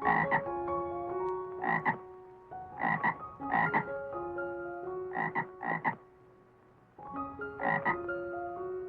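A frog croaking: about seven short croaks, some in quick pairs, with a pause of about a second past the middle. Soft background music with held notes plays underneath.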